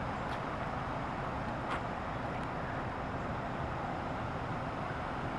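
Steady road traffic noise from cars and a van stopped or creeping along the street, with a couple of faint clicks in the first two seconds.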